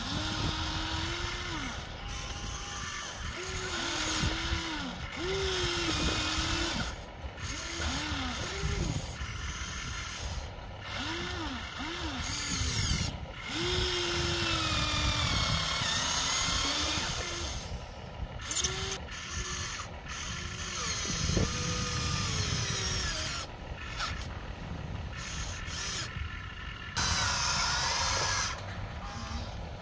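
Small electric motors and gearboxes of a radio-controlled toy excavator whining in short spells, each one rising and falling in pitch as the boom, arm and bucket move, over steady background hiss.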